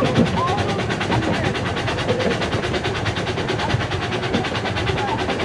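15-inch gauge live steam train running along the track, heard from a passenger car just behind the locomotive: a steady rumble with a rapid, even rattle from the wheels and track.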